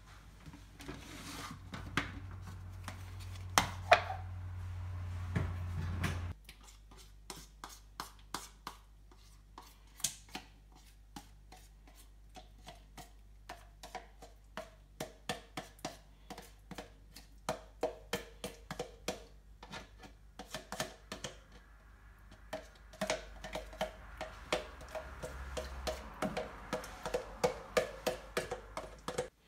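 Background music with a light, evenly spaced tapping beat, about two or three taps a second, and short plucked-sounding notes. A low hum underneath stops suddenly about six seconds in.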